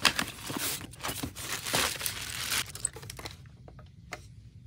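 Cardboard box and plastic wrapping rustling and crinkling as a model freight car is unpacked, for about three seconds, then a few faint clicks.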